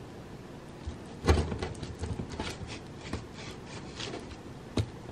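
Rolling pizza cutter being pressed and worked through a thick deep-dish pizza crust, giving a string of irregular crunching clicks and knocks, the loudest about a second in.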